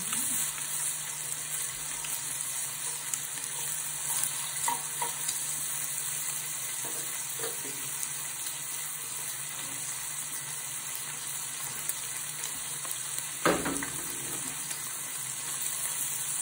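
Marinated beef rib-finger and skirt meat sizzling steadily in a stainless steel frying pan on a portable gas stove, with a brief knock near the end.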